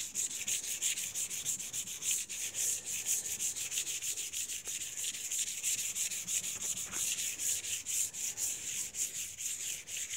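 Hand wet sanding of a car hood's paint with 400-grit waterproof sandpaper on a surface lubricated with sprayed degreasing cleaner: quick back-and-forth strokes, several a second, in a steady rhythm.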